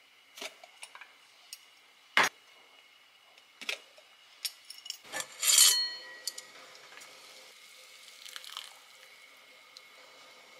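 Kitchen handling sounds: glass jars clink and knock on the counter, with sharp clicks. About halfway through, a stainless steel pot lid is lifted with a loud metallic clank that rings on briefly.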